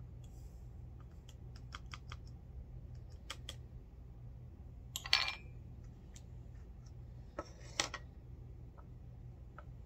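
Brass 300 Blackout cases clicking and clinking as they are handled and set down on a reloading bench. There is a louder ringing metallic clink about five seconds in and another just before eight seconds, over a low steady hum.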